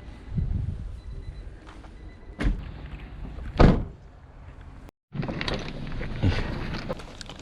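Three heavy thuds over a low rumble, like doors or gear being handled. After a cut about five seconds in, a boat's engine rumbles under wind buffeting the microphone, with small knocks.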